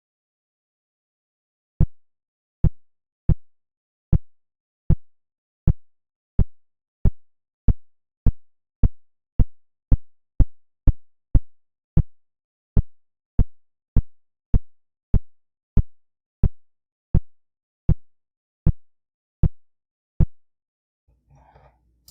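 Short low synthesized buzz pulses from FL Studio's 3x OSC plugin, a software imitation of a phone's vibration. About 29 pulses repeat, coming faster toward the middle, about two a second, then spreading out again before stopping near the end.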